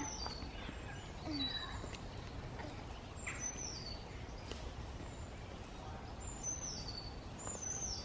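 A small songbird singing in woodland: a short, high phrase falling in pitch, repeated several times a second or two apart, over a steady low rumble.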